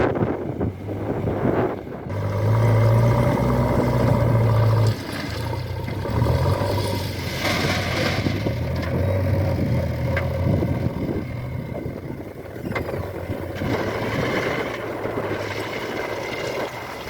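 Heavy diesel machinery at work, the engine loud and labouring from about two seconds in, dropping suddenly about three seconds later, then running on with rising and falling load and some scraping.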